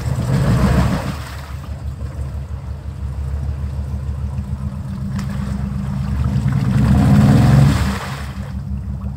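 Chevrolet Suburban's engine revving as it strains to pull out of a deep mud hole: a burst of revs at the start, a lower steady run, then a longer rev that builds and drops off sharply about a second before the end.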